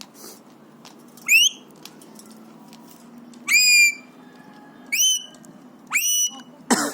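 Alexandrine parakeet whistling: four short whistles a second or so apart, each sliding sharply up and then holding briefly, followed near the end by a short harsh call.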